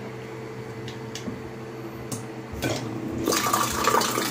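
Battery-powered water dispenser pump on a 20-litre bottle running with a steady motor hum, with a few light clicks. About three seconds in, the water from its spout starts splashing loudly into a steel tumbler.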